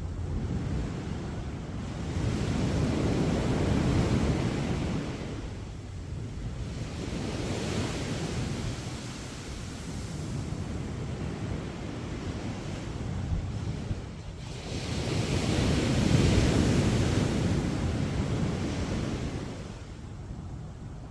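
Sea waves breaking and washing up a sandy beach, the surf swelling and fading in slow surges, with a little wind rumble on the microphone.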